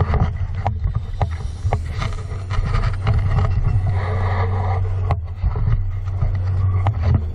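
Footsteps crunching through dry leaf litter and brushing past shrubs, with irregular twig snaps and crackles over a steady low rumble on the camera microphone.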